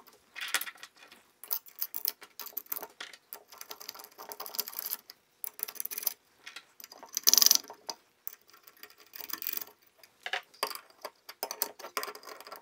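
Small metal washers and nuts clicking and rattling as they are placed on the ultracapacitor terminal posts and threaded down, in many uneven small ticks. There is one louder noise, about half a second long, around seven seconds in.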